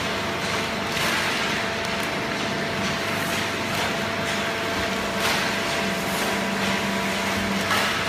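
Fully automatic horizontal cardboard baler and its inclined chain feed conveyor running: a steady mechanical hum with a few short clatters.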